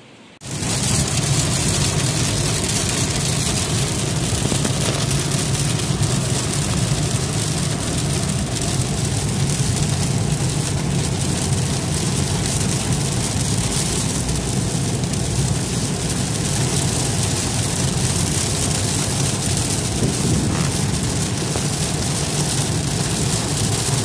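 Heavy rain drumming on a moving car, with the steady rumble of the engine and tyres on the wet road, heard from inside the cabin. It starts abruptly about half a second in and then runs evenly.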